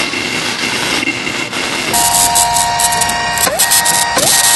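Electronic sound-design samples played from a MIDI keyboard: a dense noisy wash, then about two seconds in a held chord of several steady tones with rapid clicking over it, the chord dipping in pitch twice near the end.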